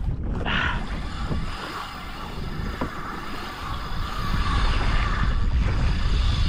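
Wind buffeting the microphone over water hissing and splashing along the hull of a fishing kayak.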